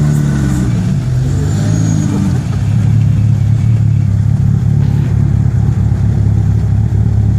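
A car engine revs up and falls back twice in the first couple of seconds, then runs on at a steady low drone.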